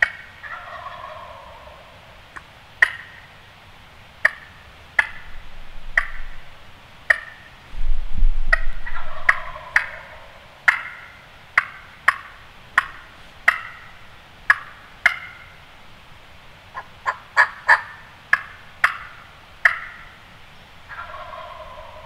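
Wild turkey gobbler gobbling, each gobble a falling rattle about a second long: near the start, about nine seconds in, and again at the end. Between the gobbles comes a run of short, sharp clucks and yelps, about one every second, quickening into a fast string near the end. A brief low rumble comes just before the second gobble.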